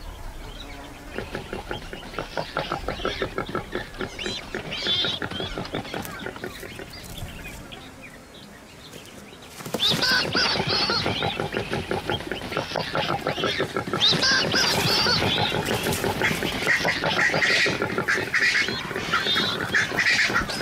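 Warthogs grunting and squealing in rapid, repeated calls, growing louder and more frantic from about ten seconds in.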